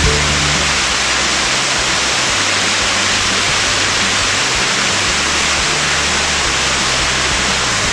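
Steady, even rushing of a waterfall cascading over rock close by.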